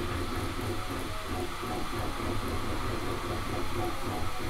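Bambu Lab A1 3D printer running a print: a steady mechanical whir from its moving print head, motors and fans, with several held tones.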